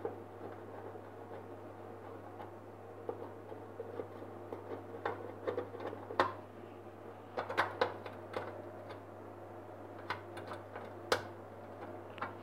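Light, irregular clicks and metallic taps of hand tools and small metal parts being handled, over a steady low hum.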